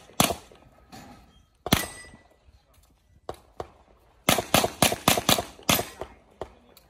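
Handgun shots fired while a competitor runs a practical-shooting stage: a few spaced shots, then a quick string of about ten shots in two and a half seconds from about four seconds in.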